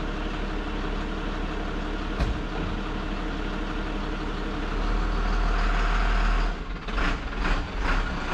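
Ford F700 dump truck's engine running as the truck creeps forward, swelling louder for a second or so past the middle. There is a single click about two seconds in, and a few separate knocks near the end.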